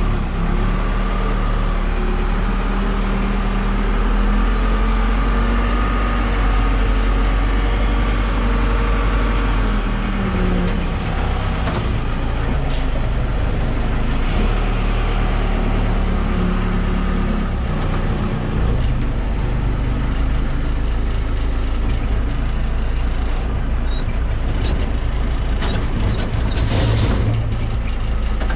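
Backhoe's diesel engine running under load, its pitch dipping and rising as the machine works. A few sharp knocks come near the end.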